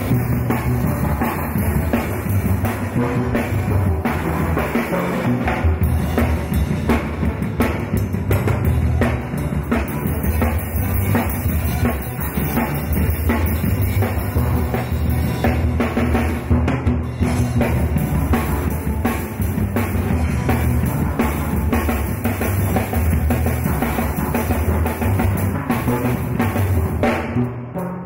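Steel orchestra playing a tune, steel pans over a steady drum beat.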